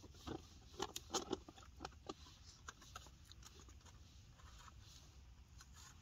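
Faint, irregular clicks and taps of small objects being handled, several close together in the first couple of seconds, then fewer and sparser.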